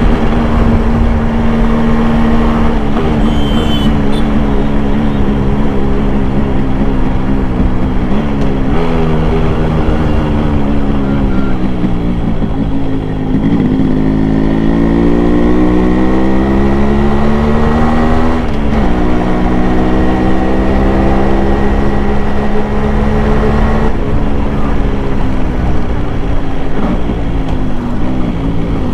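Yamaha RX100's 98cc two-stroke single-cylinder engine heard from on board while riding. The revs climb and fall, with a long rise in the middle and several sudden drops in pitch, as at gear changes or when the throttle is shut.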